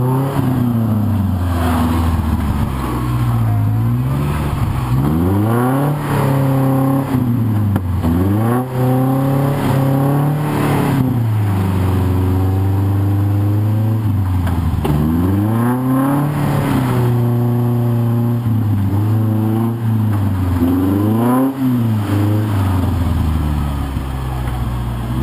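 Rock-crawling buggy's engine revving in repeated bursts as it climbs a rock ledge under load. The pitch rises and falls about every two to three seconds, with short drops back toward idle between pushes.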